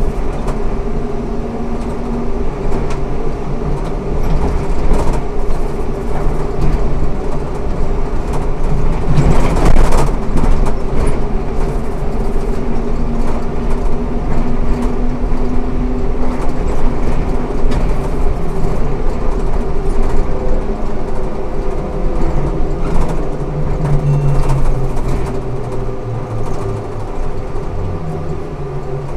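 Ikarus 280T articulated trolleybus on the move, its GVM electric traction equipment humming over road and body noise. A louder rattling stretch comes about ten seconds in, and the motor tones shift in pitch near the end as the speed changes.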